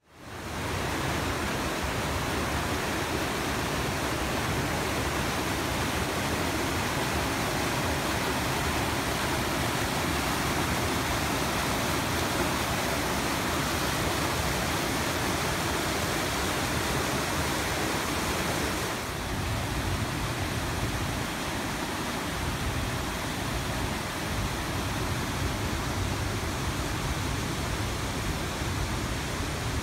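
Whitewater of a mountain creek cascade, the North Fork of Big Pine Creek at Second Falls, rushing steadily over boulders. It fades in at the start, and about two-thirds in the hiss softens a little while the low rumble grows.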